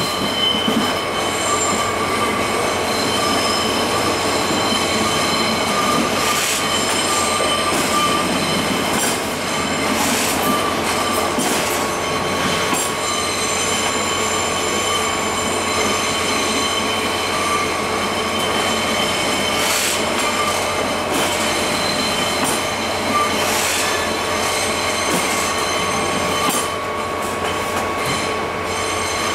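A train running on the rails, with steady high-pitched tones over the continuous noise of the wheels and a few scattered clicks.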